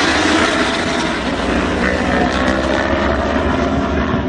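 A pack of racing motorcycles running at speed on a racetrack, their engines a steady, dense din.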